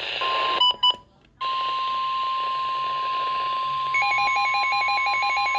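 Emergency Alert System broadcast on NOAA Weather Radio: two short data-tone bursts, a second of silence, then the steady single-pitch 1050 Hz warning alarm tone that signals a warning is about to be read. About four seconds in, a fast-pulsing, warbling beep joins the steady tone.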